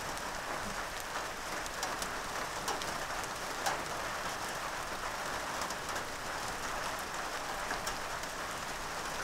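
Steady rain falling, an even hiss with many scattered, sharper drop ticks.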